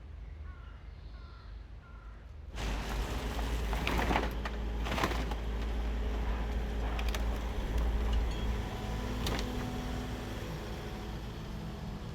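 A low rumble, then after about two and a half seconds a louder steady motor running, with several knocks and clatters over it.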